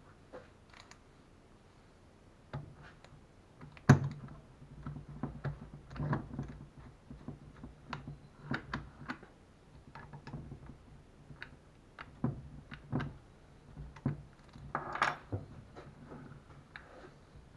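Clicks and knocks of a drill chuck being fitted and tightened onto a car alternator's shaft, the sharpest knock about four seconds in, over a faint low steady hum.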